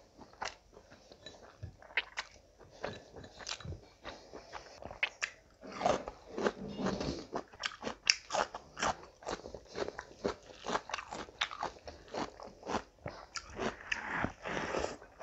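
Close-miked eating by hand: chewing of chicken curry and rice, with crunchy bites, including a sharp crunch of a raw cucumber slice about eight seconds in. The bites are sparse at first and come thick and fast from about six seconds on.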